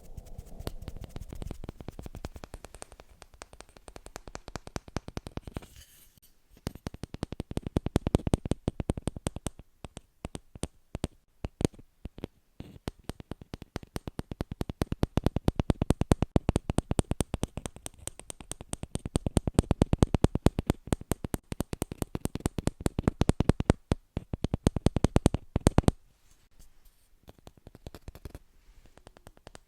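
Rapid ASMR tapping and scratching on an object, a dense stream of crisp clicks that comes in stretches and grows sparser and quieter near the end.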